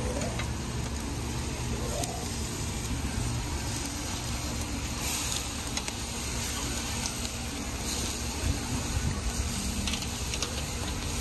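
Steaks, sausages and onions sizzling over charcoal on a kettle grill: a steady hiss with faint crackling, and a couple of light clicks of metal tongs.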